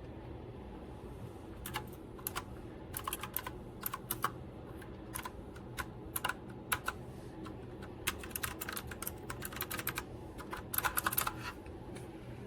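Typing on an RK Royal Kludge S108 mechanical keyboard with clicky blue switches: irregular keystrokes with quick runs of presses.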